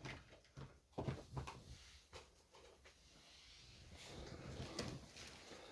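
Faint handling noises of a DVD box set: a few light knocks about a second in, then a soft rustle of packaging near the end.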